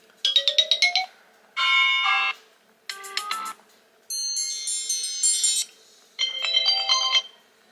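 Five classic iPhone ringtones previewed one after another through the iPhone 15 Pro's speaker. Each plays for about a second or two and is cut off when the next one is selected. The first is a quick run of rising notes.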